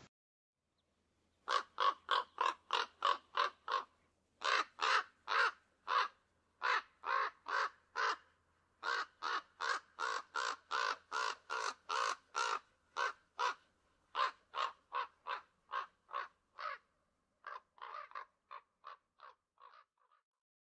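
A corvid cawing: long runs of harsh, evenly spaced caws, about four a second, broken by short pauses and growing fainter near the end.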